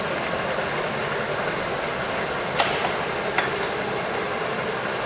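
Mori Seiki MH 2000G engine lathe running with its saddle power feed engaged, a steady mechanical whir of the drive and carriage feed. Two short clicks a little under a second apart past the middle, as the apron controls are handled.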